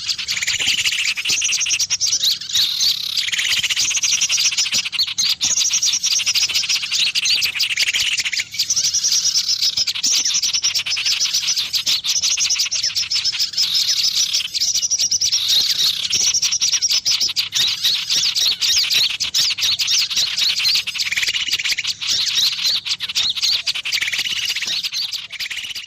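Small-bird lure call: loud, dense, unbroken chatter of high chirps and rapid trills, the kind played to draw small birds in for trapping.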